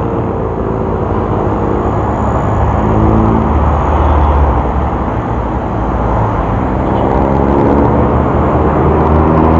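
Engines and road rumble heard from a moving motorcycle in close traffic, the engine note climbing twice as it accelerates.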